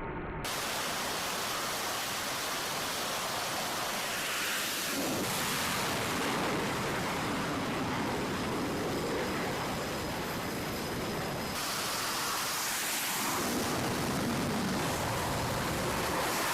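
A steady, loud rushing noise with no clear pitch, changing abruptly about half a second in and again about two thirds of the way through.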